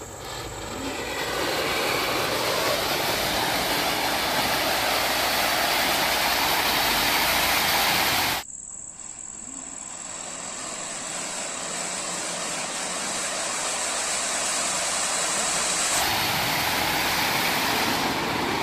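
Anar (flower-pot) fountain fireworks mounted on a spinning fan's blades, hissing steadily as they spray sparks. The hiss builds over the first couple of seconds, drops suddenly about eight seconds in, then builds again.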